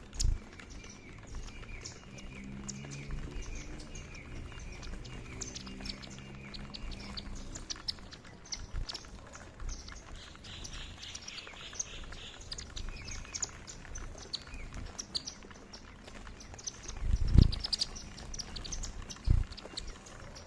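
A flock of Indian silverbills (white-throated munias) twittering with many short, high chirps as they feed on foxtail millet. Two dull thumps come near the end and are the loudest sounds.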